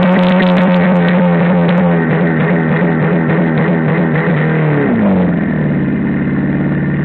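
Car engine held at high, steady revs with the tyres spinning, as in a burnout; about five seconds in the revs fall away to a lower, steady pitch.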